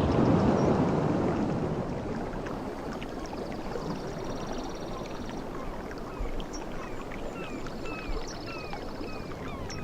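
Ocean waves washing onto a beach: one wave swells and breaks in the first second or so, then a steady wash of surf. Small birds chirp repeatedly over it in the second half, short falling calls about once a second, with two brief high trills.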